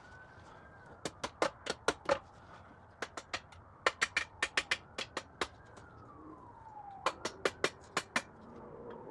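Sharp metallic taps in quick runs of several, as the last main bearing cap of a Ford 4.6 three-valve V8 block is worked loose. A distant siren rises and falls behind them.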